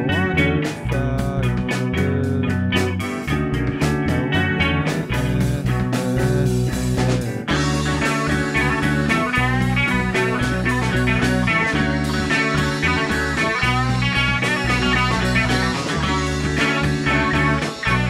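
Rock band playing live, with electric guitars and drums. The sound turns fuller and brighter about seven and a half seconds in.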